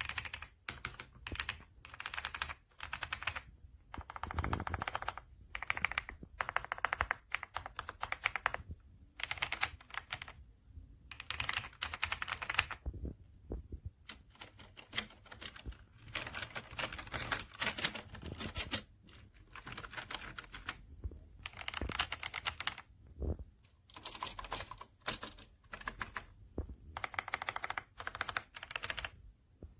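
Typing on an AJAZZ AK820 75% mechanical keyboard with PBT keycaps: runs of rapid key clicks lasting a second or two each, with short pauses between them.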